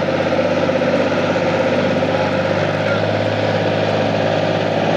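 Tractor engine idling steadily, a continuous low hum.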